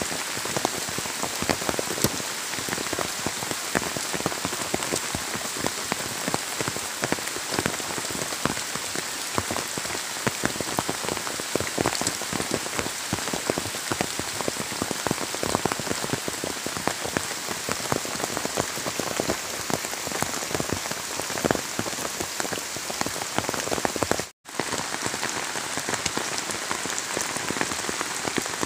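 Steady rain falling on leafy garden trees and waterlogged ground: a dense, even hiss full of separate drop splashes. The sound cuts out for an instant about three-quarters of the way through.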